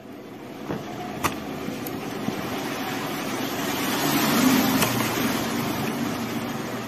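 A passing vehicle, its noise swelling for about four seconds and then fading. Over it come a couple of small sharp clicks of a precision screwdriver on the phone's midframe screws, about a second in.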